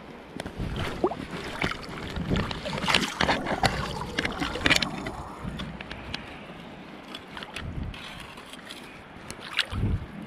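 River water splashing and sloshing with a flurry of small clicks and knocks, busiest in the first five seconds and thinning out after, then a short low rumble of wind on the microphone near the end.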